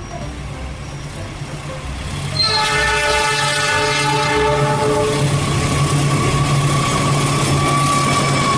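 Toy locomotive's electronic sound effects played through its small speaker: a low running hum, then about two and a half seconds in a multi-tone train horn sounds for roughly three seconds, followed by a single steady tone.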